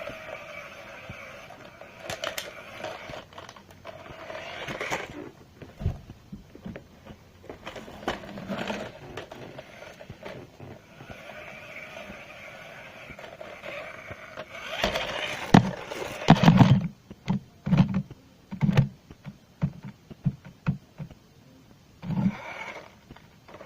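Small electric motor of a remote-control toy car whirring in short spurts, with scraping and clicks, and a run of loud knocks about two-thirds of the way through.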